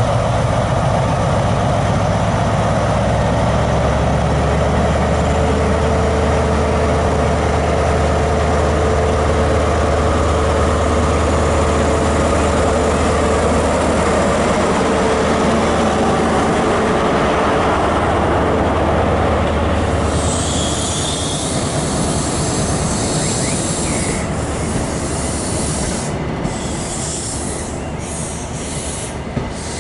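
InterCity 125 Class 43 power car's diesel engine running under power as the train pulls out and passes close by, with a steady low drone. From about twenty seconds in the engine fades and the coaches roll past with wheel squeal and a high hiss.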